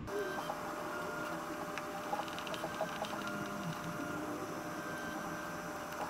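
Faint clicks and ticks of a small plastic device being handled and its screws being started with a hand screwdriver, over a steady mechanical hum in the room.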